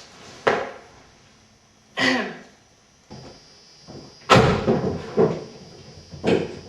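A series of sharp thumps and a slam, like a car door being shut and knocked, the loudest about four seconds in. A thin steady high tone comes in about three seconds in.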